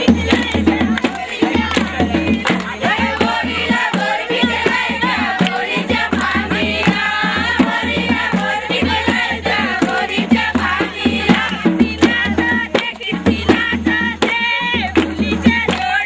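Indian folk dance music: a singing voice over drums and other percussion, with frequent drum strikes throughout.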